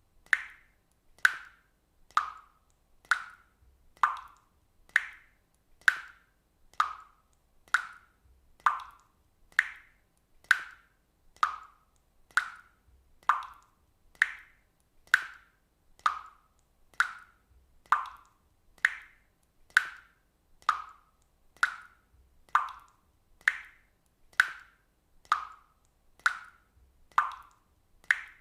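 Water droplets dripping one at a time in a steady, even rhythm of about one drop a second, each a short, clear plink.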